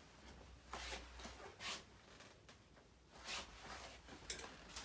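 Faint, short rustles and scrapes, four or so soft swishes a second or more apart, from an oven mitt and hands working at an open oven.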